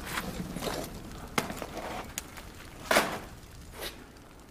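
A few short knocks and scrapes, the loudest about three seconds in, as flatbread is handled at a wood-fired clay oven.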